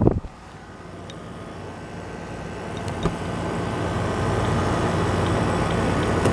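A window air conditioner, a unit about 20 years old, running: a steady rush of fan air over a low, even compressor hum. The sound grows louder over the first few seconds, then holds steady.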